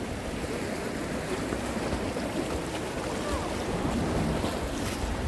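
Sea surf washing against a rocky shore, with wind buffeting the microphone in uneven low rumbles.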